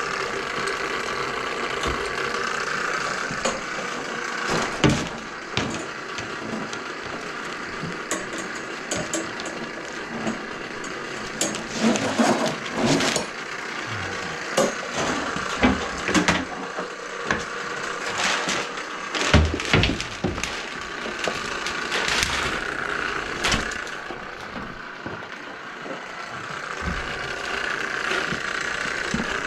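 Irregular knocks, clatter and rattles of a steel drain-cleaning cable and drain machine being handled and set up on a tile floor, over a steady faint hiss.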